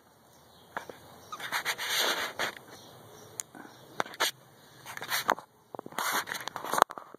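A caique clambering and beaking at a rope hammock: scattered sharp clicks with rustling, scraping bursts about a second and a half in, around five seconds in, and again near the end.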